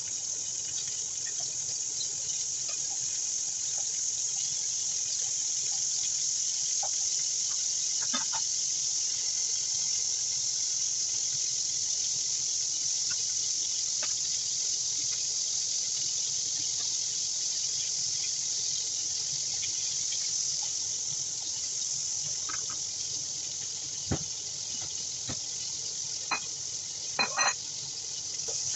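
Scallops searing in hot oil in a stainless steel wok: a steady, high-pitched sizzle. A few light knocks of kitchen utensils come through, several of them near the end.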